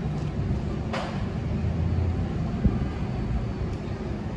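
R188 subway train on the 7 line giving a steady low rumble, with a sharp click about a second in.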